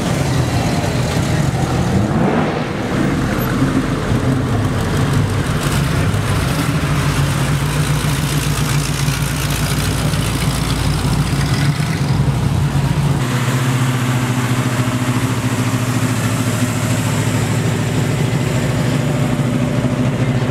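Engines of classic cars idling and running slowly as the cars roll past one after another. About two-thirds of the way through, a different engine takes over, running steadily at a low, even pitch.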